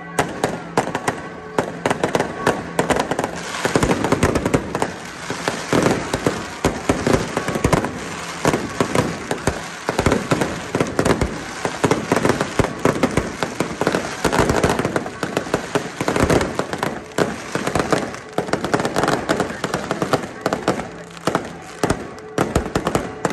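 Aerial fireworks bursting overhead in a dense, rapid barrage of bangs and crackles, thickest through the middle and thinning a little at the start and near the end.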